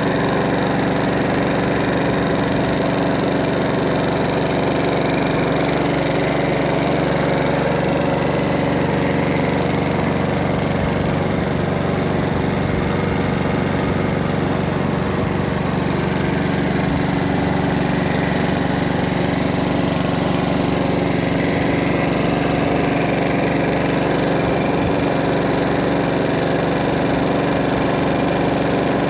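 Mountfield HP414 rotary lawnmower's petrol engine running steadily at an even speed after a carburettor clean.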